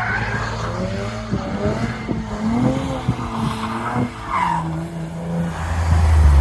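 A drift car's engine revving up and down as it slides through the corners, with tyre squeal. The engine gets louder near the end as the car passes close.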